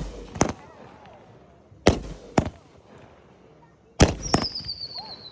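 Fireworks going off: five sharp bangs, two of them in quick pairs, with a whistle that falls in pitch near the end.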